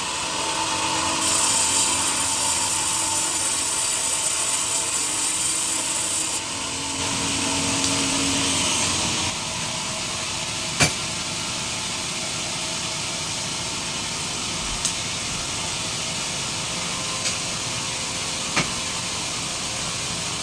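A sawmill saw cutting through a teak log, a loud steady hiss of the blade in the wood for about the first nine seconds, then the machine running on with a few sharp knocks.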